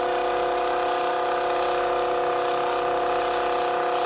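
Pulling tractor's engine running under load at a steady, unchanging pitch, a continuous mechanical drone with no revving up or down.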